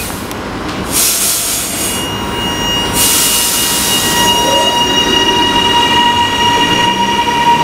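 High Capacity Metro Train, an electric suburban train, moving along the platform: after short stretches of hiss, a steady electric whine of several high tones sets in about three seconds in and holds over the hiss, with a short rising tone near four seconds.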